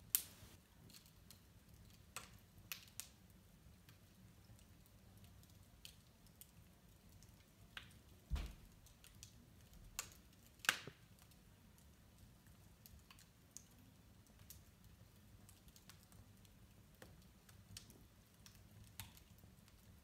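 Wood fire crackling in a fireplace: scattered sharp pops and snaps at irregular intervals, the loudest near the start and about eleven seconds in, with one duller thump about eight seconds in, over a faint low hum.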